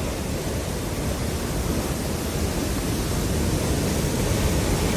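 Steady rushing noise, growing slightly louder toward the end.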